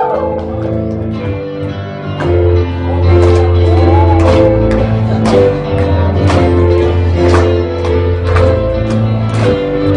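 Worship song music: a band playing sustained bass and chord notes over a steady beat of drum hits, about one a second, with little or no singing.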